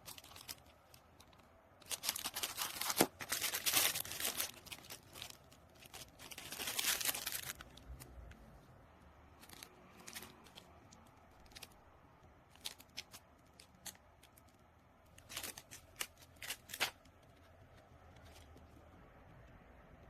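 Packaging handled by hand during an unboxing: a stretch of crinkling and rustling from about two seconds in until about seven and a half seconds, then scattered light clicks and taps.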